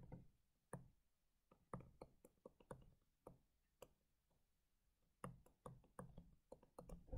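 Faint, irregular taps and clicks of a stylus tip on a tablet screen during handwriting. The taps are sparse at first and come in a quicker cluster from about five seconds in.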